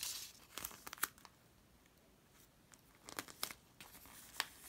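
Crinkling and crackling of a glossy, tape-covered paper sticker as it is laid on a paper page and pressed flat with the fingers. A rustle at the start and a few sharp crackles in the first second, quiet for about two seconds, then more short crackles and taps near the end.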